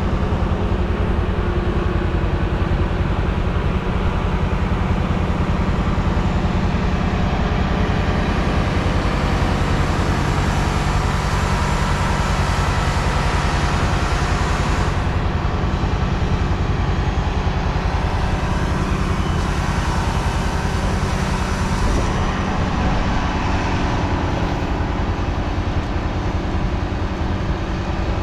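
Heavy tractor diesel engines running steadily under load, with a constant low drone.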